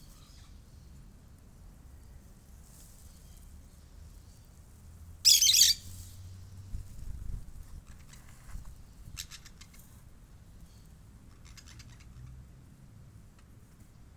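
Parakeets calling: one loud, harsh squawk about five seconds in, followed by shorter bursts of rapid chattering chirps.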